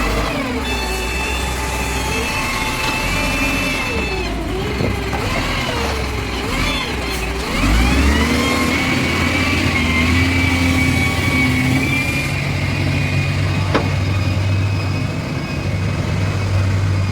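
An engine running, its pitch rising and falling repeatedly.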